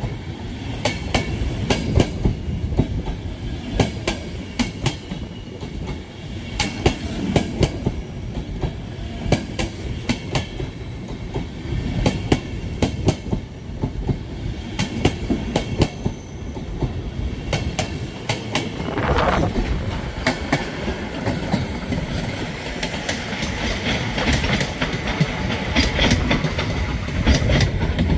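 Intercity passenger coaches rolling past at close range: a steady rumble of wheels on rail with an irregular run of sharp clacks as the bogies cross rail joints. A brief rushing noise comes about two-thirds of the way through.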